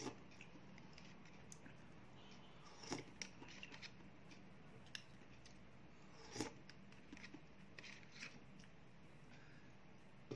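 Quiet eating sounds: a spoon clicking faintly against a plastic soup cup and soft sips, the two loudest clicks about three seconds and six seconds in, over a steady low room hum.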